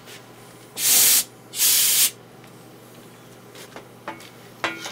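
Compressed-air blow gun on a shop air hose fired in two short blasts of hiss, about half a second each, blowing sawdust off a wood lathe.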